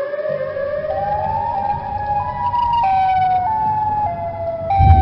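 Siren Head's siren call, a siren sound effect: a pitched tone climbing in steps for about two seconds, then switching back and forth between two pitches like a hi-lo siren. A deep rumble runs underneath and turns loud near the end.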